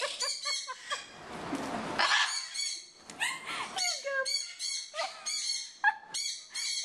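Blue-and-gold macaw making a string of short squawks and chattering calls, with a rush of wing-flapping about a second in.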